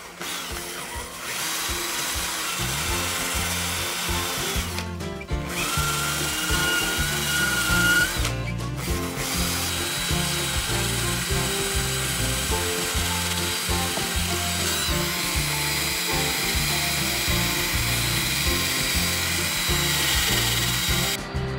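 Electric drill grinding old plaster and mortar out of the joints of a stone wall, its motor whine rising as it speeds up. It stops briefly twice and cuts off near the end, with background music underneath.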